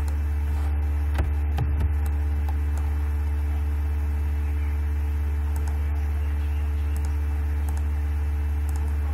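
Steady low electrical hum with faint higher overtones, unchanging throughout, and a couple of faint knocks a second or two in.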